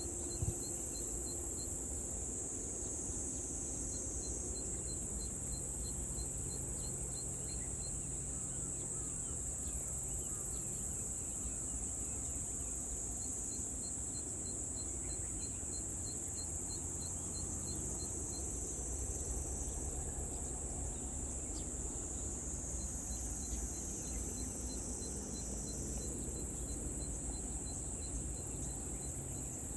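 Field insects shrilling: a steady high-pitched drone, with trains of short chirps at about three a second coming and going. A low steady rumble sits underneath.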